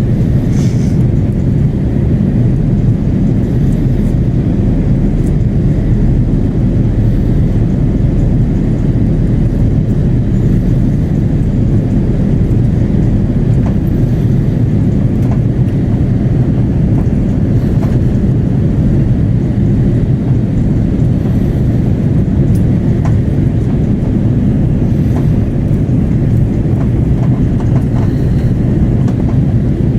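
Steady roar of airflow and engines inside the cabin of an Airbus A330-300 airliner in flight, heaviest in the low end and unchanging, with a few faint ticks from the cabin.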